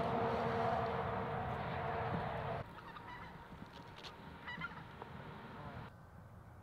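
Flock of geese honking in flight, the short calls clearest about four seconds in. A louder steady noise fills the first two and a half seconds and cuts off abruptly.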